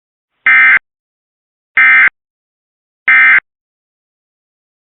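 Emergency Alert System end-of-message code: three short, identical bursts of SAME data tones, about a second and a quarter apart, signalling the end of the alert.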